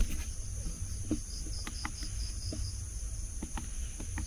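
Crickets and other night insects trilling steadily and high-pitched, with one cricket chirping in quick pulses during the first second. Scattered faint clicks and a low rumble run underneath.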